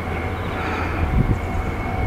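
Nankai electric train moving through the station: a steady high whine over a low rumbling that grows louder in the second half.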